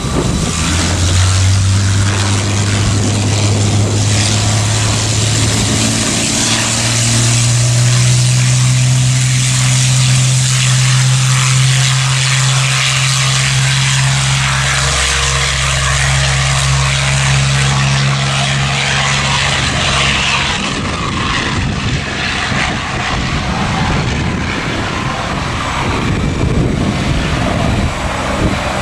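Propeller airplane's engines droning. The low tone steps up in pitch about a quarter of the way in and fades out about two-thirds of the way through, over a steady rushing hiss.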